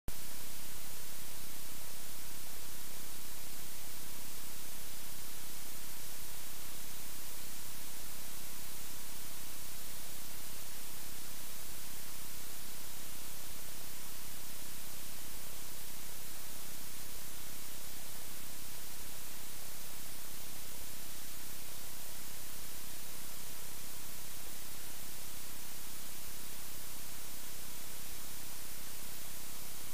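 Steady static hiss, brightest in the treble, with a faint steady hum tone underneath and no distinct sounds of handling or carving.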